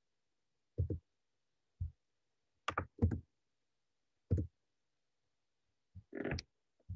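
A handful of short, low knocks and thumps, about five, spaced irregularly with silence between them, the last one a little longer and more muffled.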